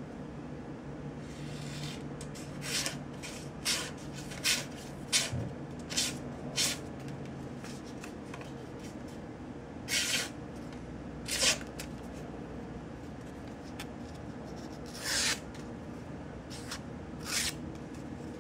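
Thin plastic of a Cardsharp credit-card-sized folding knife being handled: a run of short scrapes and clicks, then a few more spaced several seconds apart, over a steady low hum.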